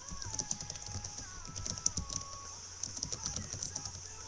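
Typing on a laptop keyboard: quick, irregular key clicks.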